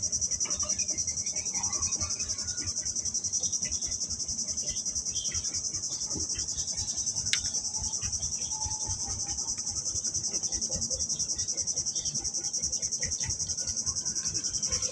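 Insects shrilling: a continuous high, rapidly pulsing chirr, with one sharp click about seven seconds in.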